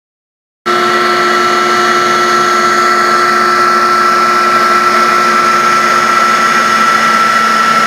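Maxicam 1325 CNC router running steadily: a constant spindle whine made of several fixed pitches over a steady hiss. The sound starts abruptly, in full, about a second in.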